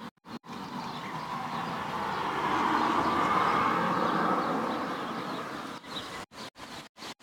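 A vehicle passing on the nearby road: a steady traffic noise that swells to its loudest midway and fades away, after which the sound cuts in and out.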